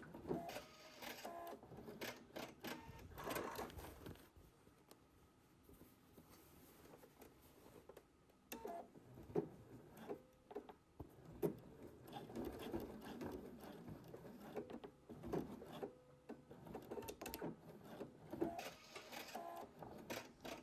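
Sewing machine stitching slowly through denim in short, uneven spurts, with a quieter pause about four seconds in before it picks up again.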